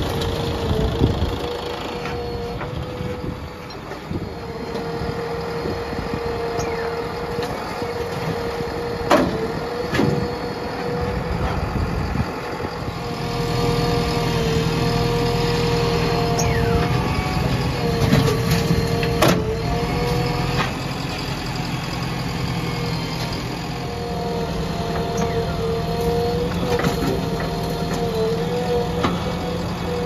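JCB 3DX backhoe loader's diesel engine running under load while the backhoe digs soil and dumps it into a tractor trolley, with a steady whining note that dips now and then. A few sharp clanks stand out, about nine, ten and nineteen seconds in.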